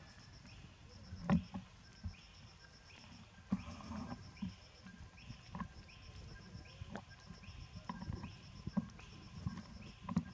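Forest background sounds: a high, fast pulsing trill repeating in short runs, and a short falling chirp repeating roughly every half second. Scattered soft thumps and knocks come through underneath.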